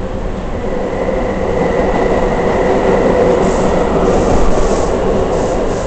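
R62A subway car running, heard from on board: a steady rumble of wheels on rail that grows a little louder, with a faint high whine coming in about a second in.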